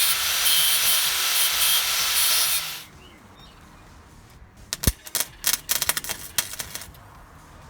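Workshop metalworking: a loud, harsh hiss from a power tool or welder at work for about three seconds, cutting off suddenly. A scatter of sharp clicks and taps follows.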